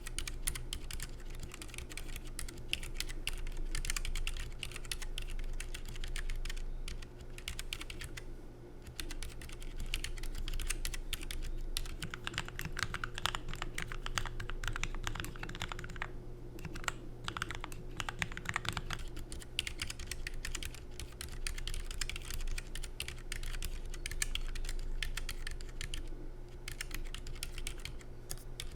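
Typing on a Keychron K3 low-profile mechanical keyboard with red linear optical switches and low-profile ABS keycaps: a fast, continuous run of soft key clicks, broken by a few short pauses.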